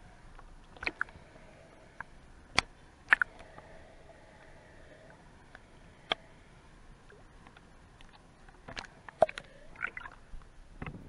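Irregular sharp clicks and knocks heard underwater through a camera's housing, about a dozen in small groups, the loudest about three seconds in and again near nine seconds, over a low background.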